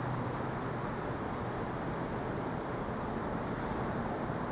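Steady street traffic noise from passing cars and vehicles, an even wash of sound with no distinct events.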